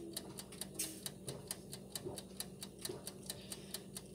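Fast, even mechanical ticking, about five ticks a second, over a faint steady hum.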